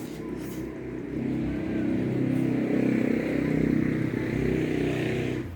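A vehicle engine running, louder from about a second in, cutting off suddenly near the end.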